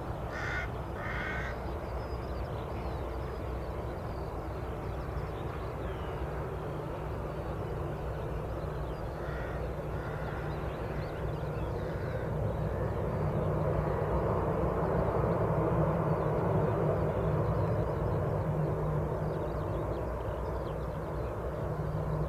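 Jet engines of a taxiing Ryanair Boeing 737, a steady rumble and hum that grows louder about halfway through. A bird caws twice near the start, with a few fainter calls later.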